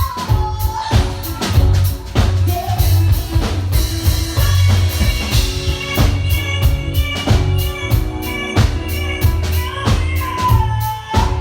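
Live soul band playing an R&B groove, with a steady drum-kit beat and bass. A singer's held, gliding notes come in just at the start and again near the end.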